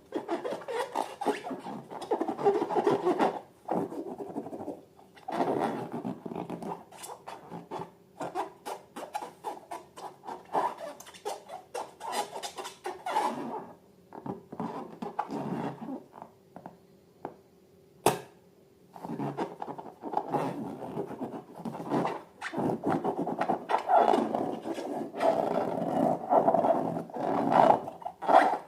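Slime being stirred and worked by hand, irregular scraping and rubbing with small clicks in bursts. The handling stops for a few seconds past the middle, broken by one sharp click, then resumes more densely.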